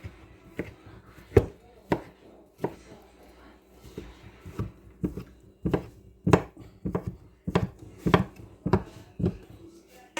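Knife chopping leftover cooked turkey into small pieces: a run of sharp, uneven knocks, about one or two a second.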